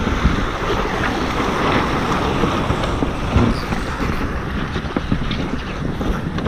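Wind buffeting the onboard microphone over the rush of water along the hulls of a Tornado catamaran sailing at speed, a steady noisy rumble.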